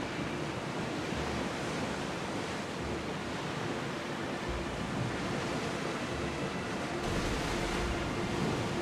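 Sea waves and water rushing steadily, with wind on the microphone. A faint steady hum runs underneath.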